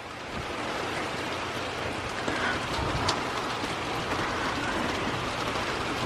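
Rain falling steadily, growing louder over the first second and then holding even, with a single sharp tick about three seconds in.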